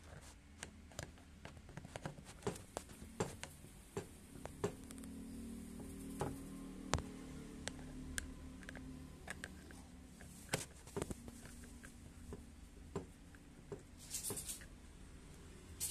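Screwdriver driving a screw through a metal caster plate into a plastic base: irregular sharp clicks and taps of metal on metal and plastic, with a short scraping rattle near the end.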